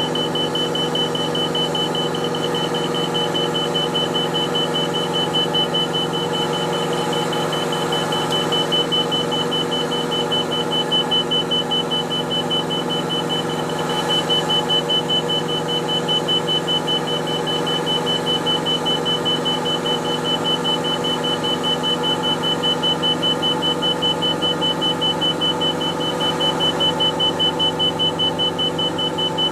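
Enstrom F-28F helicopter's low rotor RPM warning horn sounding as a fast, evenly pulsed high beeping, over the steady drone of the piston engine and rotor in a hover: the rotor RPM has dropped below its normal range.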